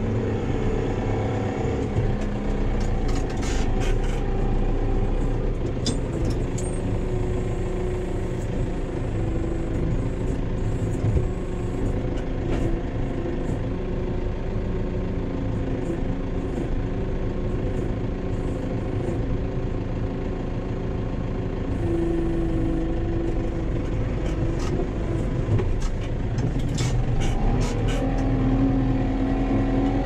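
Case Farmall 75 C tractor's diesel engine running, heard from inside the cab, its speed changing a couple of times as the tractor works. A few short clicks and knocks come through about four and six seconds in and near the end.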